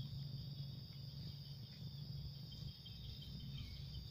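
Crickets trilling steadily, over a low rumble.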